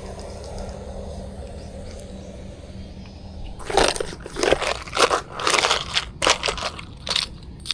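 Steady low rumble like wind or surf, then from about halfway through a series of loud, irregular crunches, roughly two a second.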